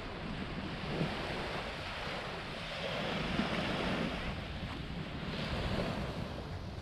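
Small waves washing onto a sandy beach, with wind rumbling on the microphone; the wash swells a little about halfway through.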